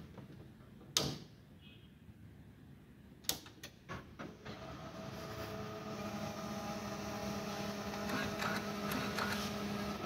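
Canon imageRUNNER 2202 copier being switched on: a sharp click about a second in and a few more clicks around three to four seconds, then its motors start up and run with a steady hum of several held tones that slowly grows louder.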